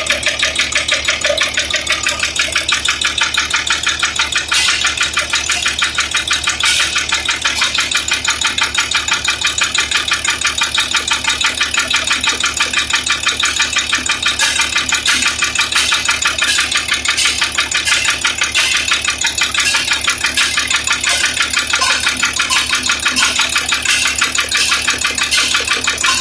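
Freshly overhauled Hino straight-six diesel engine running steadily on its test run while driving a generator, with an even, rapid firing pulse.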